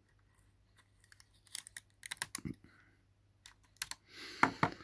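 Light plastic and metal clicks and taps from handling the inside of an opened laptop, in small irregular clusters, with a busier patch of clicking and rubbing near the end.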